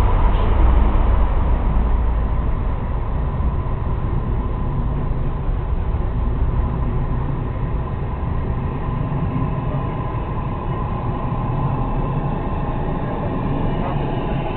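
Miniature ride-on railway train running along its track, a steady low rumble.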